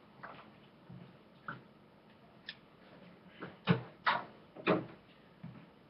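A run of short knocks and clunks, sparse and faint at first, then three louder ones in quick succession about four seconds in, like objects being handled and set down.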